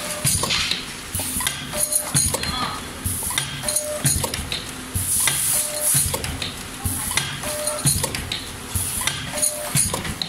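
DXD-50YZ four-side-seal sachet packing machine running: a repeating cycle of metal clicks and clacks from its sealing jaws and moving parts, with short hisses every second or two.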